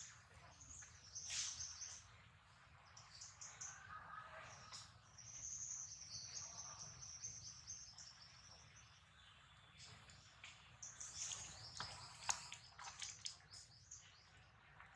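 Faint bird chirps and calls over a quiet outdoor background. One longer drawn-out call comes about six seconds in, and a busier run of chirps and light clicks in the second half, with one sharp click the loudest sound.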